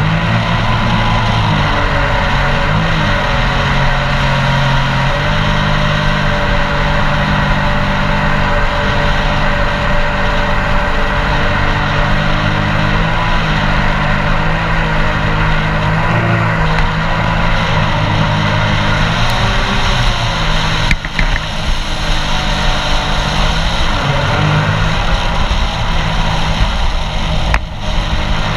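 Mini jet boat's engine running under way, its pitch stepping up and down with the throttle, over a steady rush of water and wind. The level dips briefly twice in the last third.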